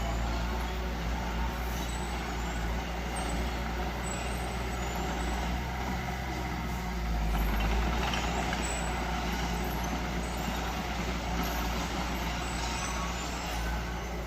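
Heavy diesel earthmoving machinery running steadily: a low, constant engine drone that swells briefly louder about eight seconds in.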